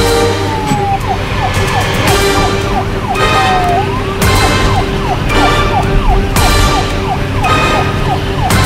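Police siren sound effect: a slow falling wail, then a rapid yelp of falling sweeps about three a second, broken once by a slower fall and rise. It plays over background music with loud hits about every two seconds.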